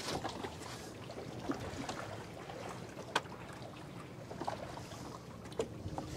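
Steady wind and water noise on open water, with a few faint clicks and one sharper click about three seconds in.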